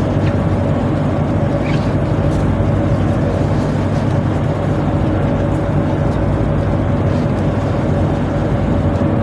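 Tugboat machinery running steadily: a continuous low drone with a thin steady whine above it.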